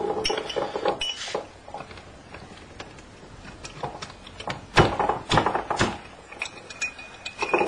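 A cork being forced into the neck of a glass bottle: squeaking and creaking as it rubs against the glass, with three sharp knocks about five to six seconds in and a thin squeak near the end.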